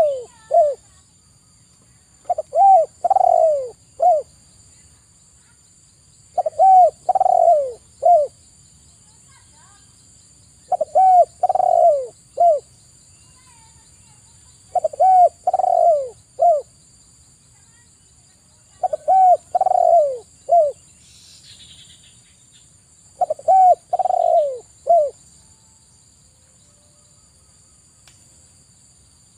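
Spotted dove cooing: a phrase of three or four low, falling coos, repeated about every four seconds, six times.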